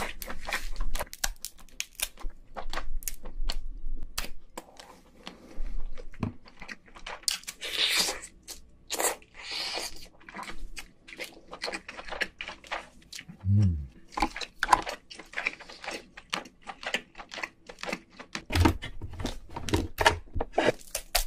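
Eating sounds from cooked king crab: shell cracking and snapping, meat pulled from the legs, and chewing, in dense rapid crackles with a couple of longer tearing, sucking stretches about halfway through.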